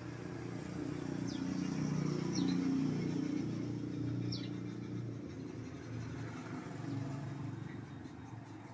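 A motor vehicle passing on the road, its engine hum swelling about two to three seconds in and then fading away. A few short high chirps sound over it in the first half.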